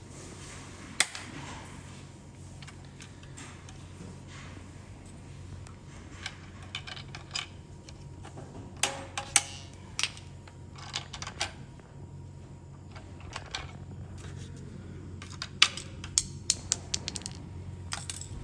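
Irregular sharp clicks and taps of small plastic chair parts and tools being handled during disassembly of a chair's adjustment knob housing. The clicks are scattered, with a loud one about a second in and quick clusters in the middle and near the end, over a steady low hum.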